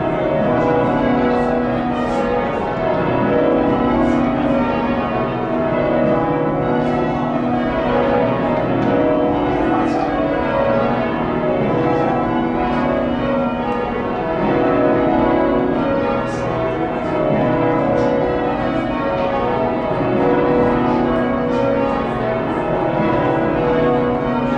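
Church bells being change-rung, heard from the ringing chamber below the bells: a continuous, even stream of bell strokes following one another without pause.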